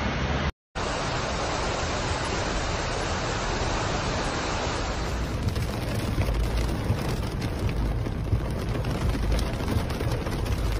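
Steady rushing noise of heavy rain and fast-flowing floodwater, broken by a short gap under a second in. From about five seconds in it is heard from inside a car, with a low rumble and many small ticks of rain on the car.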